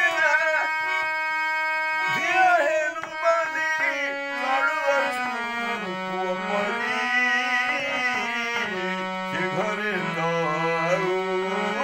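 Harmonium playing sustained chords and melody, with a man singing an Odia folk song over it in wavering phrases that come and go.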